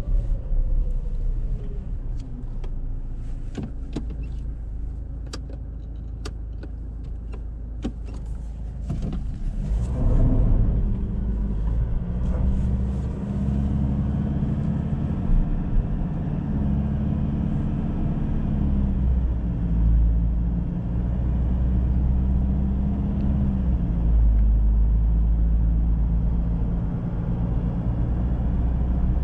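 Ford Ranger pickup heard from inside the cabin. For the first several seconds it rolls slowly, with scattered sharp clicks. About ten seconds in, the engine pulls harder and the truck accelerates, then cruises with a steady low engine drone and road noise.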